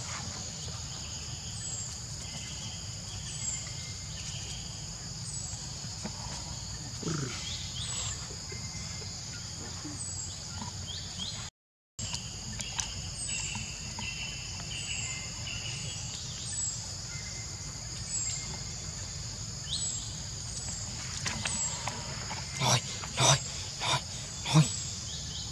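Steady high-pitched insect chorus with a short higher chirp repeating every second or so. The sound cuts out for a moment about halfway, and four short loud sounds come near the end.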